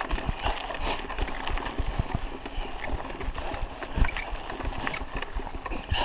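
Raleigh Ascent mountain bike rattling and clattering over a rough, stony dirt road, with irregular knocks from the tyres and frame on the bumps and one harder knock about four seconds in.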